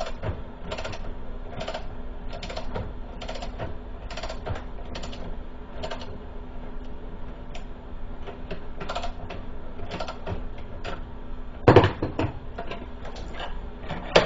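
Ratchet wrench clicking in short repeated runs as it turns an extractor socket that grips the rounded-off bolt head and backs the bolt out. There is one loud metal clunk near the end.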